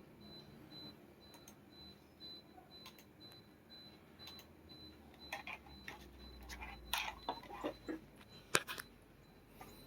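A run of sharp clicks and taps, the loudest a little after eight seconds in, over a faint high tone that pulses evenly about three times a second.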